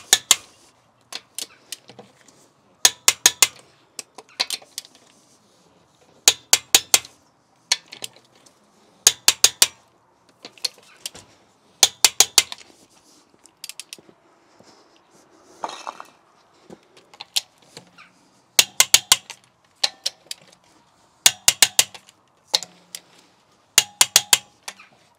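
Wrench ratcheting on car wheel bolts as they are tightened: short runs of sharp metallic clicks, repeated every two to three seconds.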